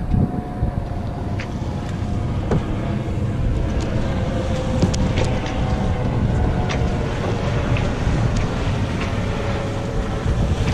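Wind buffeting the microphone on a sailboat under way, with a steady low rush of wind and water and scattered sharp clicks from the boat's gear.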